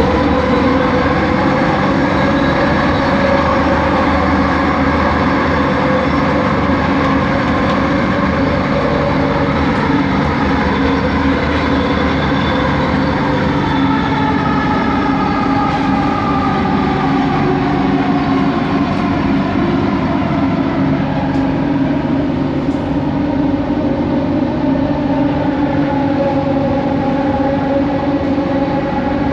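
Kelana Jaya Line Bombardier ART Mark II train running, heard from inside the carriage: the linear induction motor whines in several tones that slide slowly down in pitch through the middle and climb again near the end, over steady rolling noise. This is the line's original, distinctive 'weird' motor noise.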